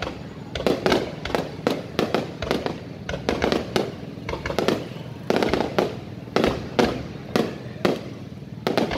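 Aerial firework shells bursting overhead in a rapid, irregular run of sharp bangs, about three a second.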